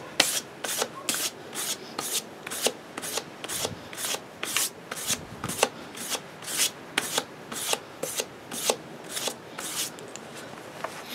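1500-grit sandpaper on a hand-held sanding block stroked back and forth along the steel edge of a Newfoundland logger's axe, about two strokes a second, stopping about ten seconds in. This is the fine-grit stage of sharpening, bringing the edge to a polish.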